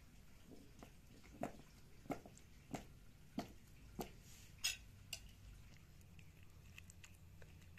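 Soft, wet taps and clicks of hands working a raw whole chicken and a metal spoon packing stuffing into its cavity. About six evenly spaced taps come in the first half, the last one sharper, then only faint handling.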